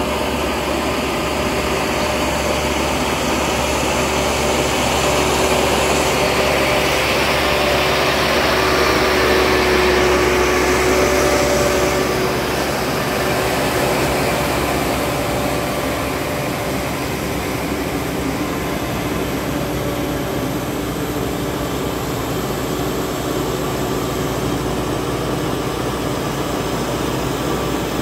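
Diesel engines of crawler tractors running steadily while rotary-tilling a flooded paddy field, a continuous engine drone that swells slightly in the middle.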